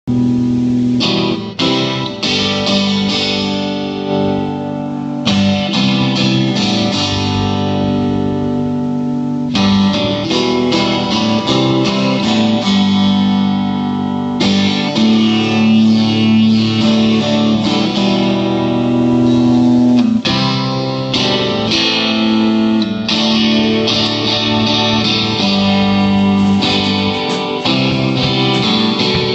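Acoustic guitar strumming chords, changing chord every few seconds.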